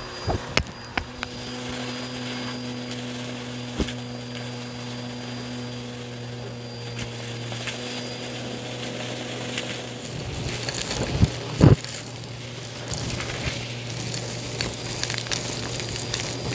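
Bissell vacuum running steadily with its open hose sucking up debris from a shag rug. Small bits click and crackle as they rattle up the hose, busier in the second half, with two louder knocks about two-thirds of the way through.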